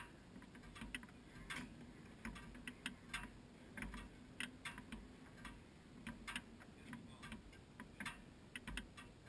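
Faint, irregular ticking and clicking, a few clicks a second, over a low rumble.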